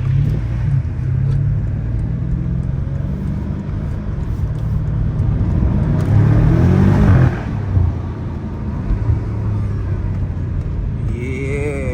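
BMW M5 Competition's twin-turbo V8 running under way, with a short burst of acceleration about six seconds in: the engine note climbs and then drops off sharply a second and a half later.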